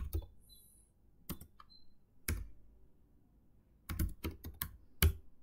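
Computer keyboard keys being typed in sparse, irregular keystrokes, with a quick run of several strokes near the end.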